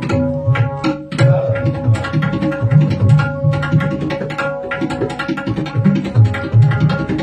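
Tabla solo in teental: fast, dense strokes on the tabla, with pitched bass-drum tones underneath, over a harmonium holding a steady repeating melody (the lehra). The strokes thin out briefly about a second in, then resume.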